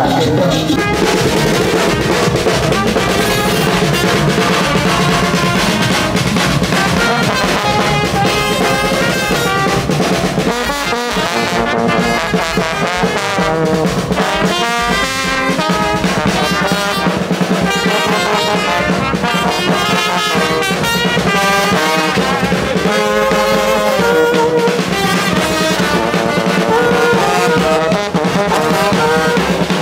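Brass band playing, with a tuba in the low part and a bass drum.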